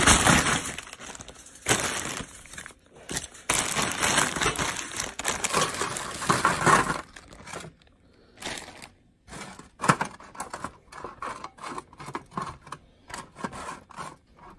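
A plastic frozen-food bag crinkles loudly as frozen tempura cauliflower is shaken out of it onto a metal baking sheet, for about seven seconds. Then come many short clicks and taps as the frozen pieces are pushed around and spread out on the pan by hand.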